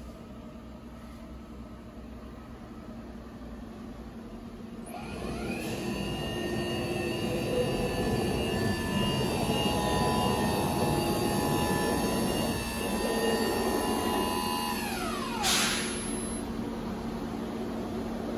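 HSD ES919 10 hp spindle motor on a CNC router, with a steady machine hum under it: the spindle whines up in pitch over about a second, runs steady for about ten seconds, then winds down with a brief hiss as it slows.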